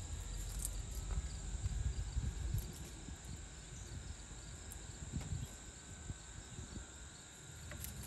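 Quiet outdoor background: a low rumble that eases after about three seconds, a few faint light rustles and clicks, and a steady thin high whine underneath.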